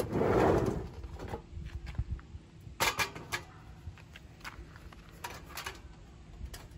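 A brief rustle, then a few scattered clicks and light knocks as a portable gas camping stove is handled, its lid and cartridge compartment being touched.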